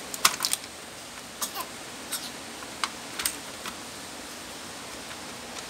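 Small, sharp plastic clicks and taps, about a dozen scattered irregularly, as hands work a laptop motherboard and its cable connectors free of the case; the loudest come just after the start, with one more sharp click at the end.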